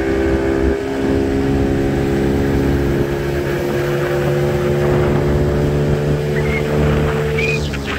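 Outboard motor running steadily at cruising speed as a small boat travels up the river, with rushing wind and water noise over it.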